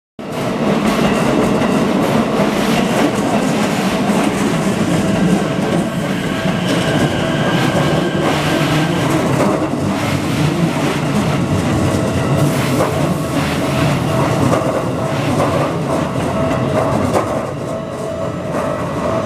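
Keikyu 1000 series and 1500 series electric trains, coupled together, passing over a level crossing. Steady running noise with repeated clicks from the wheels on the rails. It cuts in suddenly at the start and eases slightly near the end.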